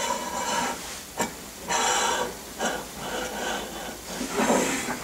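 Steel linear guide rail and its T-nuts scraping as they slide along the slot of an aluminium C-beam extrusion: several uneven rasping strokes, with a sharp click about a second in.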